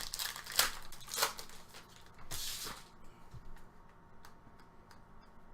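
2018 Panini Prizm football trading cards being flipped and slid through the hands, with two sharp card snaps in the first second or so and a longer swish a little after two seconds, then faint ticks of handling.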